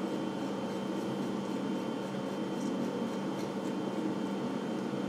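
Steady machine hum of workshop room tone, with a few faint light clicks around the middle as metal parts are handled.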